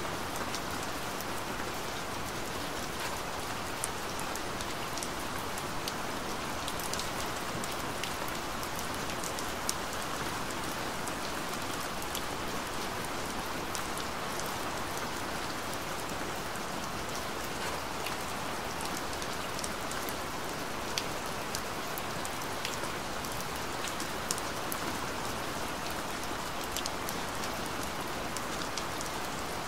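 Steady rain falling, an even hiss with scattered sharp drop ticks throughout.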